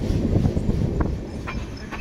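Passenger express train running at speed: a steady low rumble of wheels on rail, with a few sharp clacks as the wheels cross rail joints.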